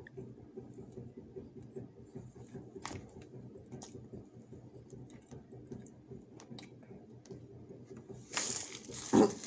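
Plastic wrapping being crinkled and torn open to free a plastic fork: a few faint clicks and rustles, then a louder burst of crinkling near the end.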